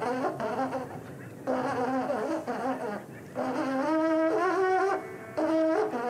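Buzzy, horn-like held notes played in short phrases: a steady low note with shifting overtones above it, then a higher pair of notes in the second half, with brief gaps between phrases.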